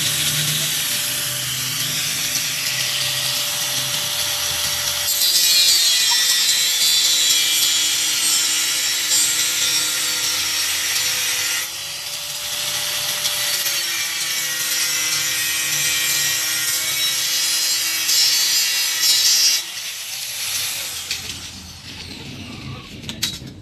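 Handheld electric angle grinder cutting into a steel flat bar: a loud, hissing grind over the motor's whine, which drops a little in pitch as the disc bites, eases briefly near the middle, then stops about 20 seconds in. A few light metal clinks follow near the end.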